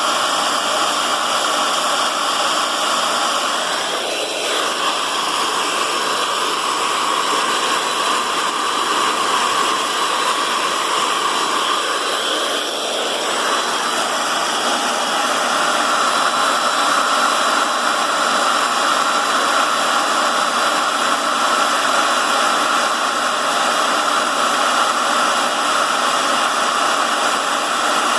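Drill motor running steadily while a center drill cuts into a broken steel head bolt in a Deutz diesel cylinder head. The level dips briefly twice, about four and thirteen seconds in.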